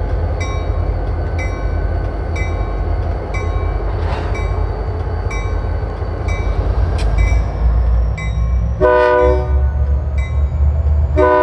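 Diesel locomotives running with a steady low rumble while the locomotive bell rings about twice a second. Near the end the air horn sounds one long blast.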